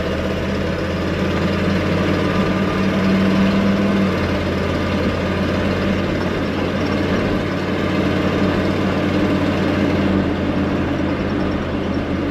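1979 Chevy C20's big-block V8 running steadily as the truck is driven. The engine is pulling with a freshly replaced carburetor inlet fuel filter, after a clogged filter starved it of fuel, and it runs better for it. Its note shifts slightly about four seconds in.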